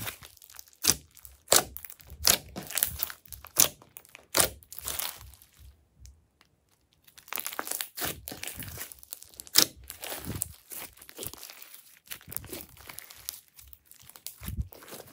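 Glossy slime being kneaded, stretched and squeezed by hand, giving irregular sharp sticky clicks and pops, with a pause of about a second partway through.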